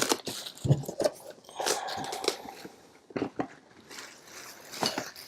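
Irregular crackling and crunching of packaging being handled while a box of RC car parts is unpacked, with a short stretch of rustling about two seconds in.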